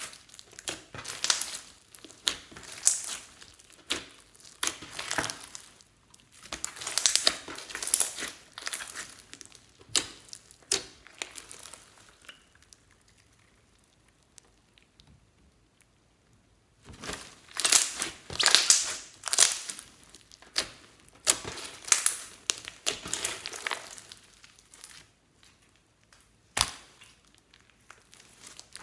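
Glossy slime full of foam beads and glitter being kneaded and squished by hand, giving runs of many small squishy pops and clicks. It goes nearly quiet for a few seconds about halfway while the slime is stretched, then the squishing starts again.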